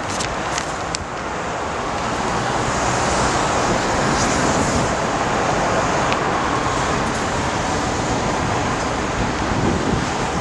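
Steady outdoor noise of road traffic and wind on the microphone. A few short crackles of the paper poster being handled about a second in.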